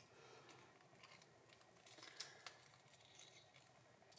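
Faint rustling and a few light clicks of fingers picking at and tearing open a latex balloon.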